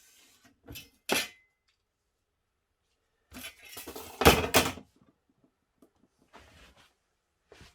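Hard objects clinking and clattering: two sharp knocks about a second in, a louder burst of clatters around four seconds in, then a few faint ones near the end.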